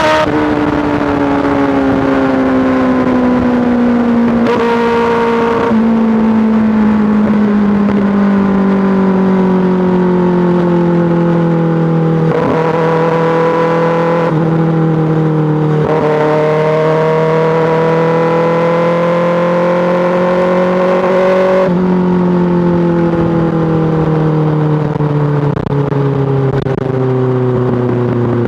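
2024 Kawasaki ZX-6R's inline-four engine through an M4 GP slip-on exhaust, running under way. Its pitch falls slowly over long stretches, with a few sudden steps in pitch along the way.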